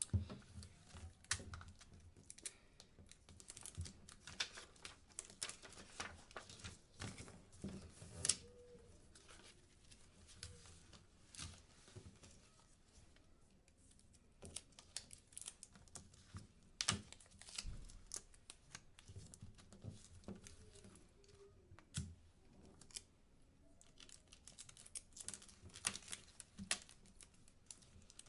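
Paper and photos being handled on a tabletop: irregular light taps, clicks and rustles as pictures are pressed and stuck down onto construction paper, with occasional crinkles.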